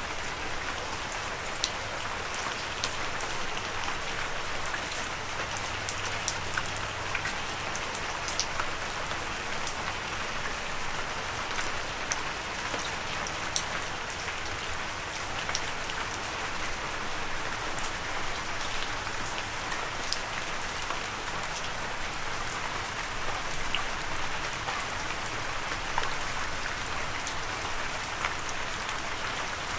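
Steady rain falling, a continuous hiss with many distinct drops ticking on a surface.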